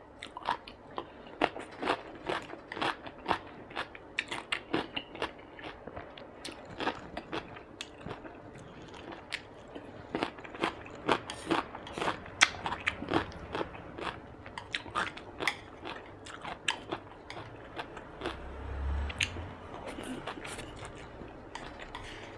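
Close-miked chewing of a mouthful of food: many irregular wet mouth clicks and smacks, with a brief low rumble late on.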